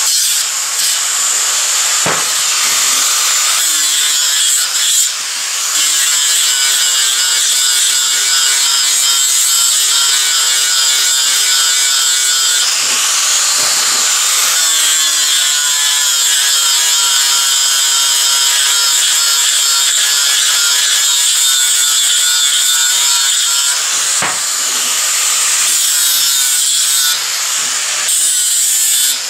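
Angle grinder with a coarse abrasive disc grinding a steel bar, a steady high whine and rasp of the disc on the metal that dips briefly a few times as the disc comes off and goes back on the work.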